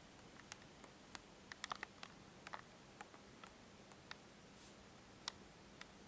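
Near silence: room tone with a faint low hum and a scatter of faint, short, sharp clicks and ticks, several of them bunched together about two seconds in.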